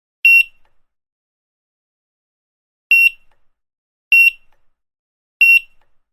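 Grocery checkout barcode scanner beeping four times, each a short high-pitched beep. After the first beep there is a gap of about two and a half seconds; the other three come about a second and a quarter apart.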